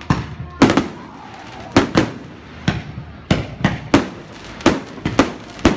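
Aerial firework shells bursting overhead: a dozen or so sharp bangs at uneven spacing, some coming in quick pairs.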